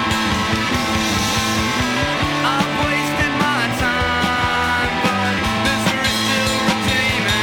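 Rock music with distorted guitars, a steady drum beat and some singing.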